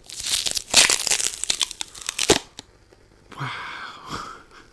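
Sticky sheet of a lint roller being peeled and handled: a dense crackling, tearing noise for about two and a half seconds, then after a short pause a briefer rip with a squeaky edge.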